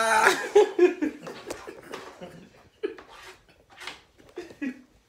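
People laughing and talking over one another, with a few sharp clicks in between.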